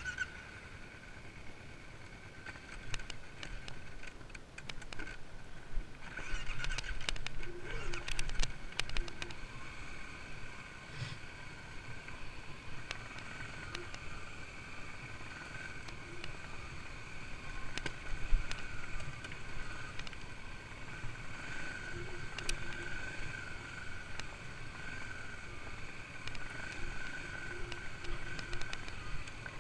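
Kawasaki dirt bike's engine running steadily as the bike rides slowly over a rough, stony trail, with scattered clicks and knocks from the bike jolting over stones and roots, thickest between about six and nine seconds in.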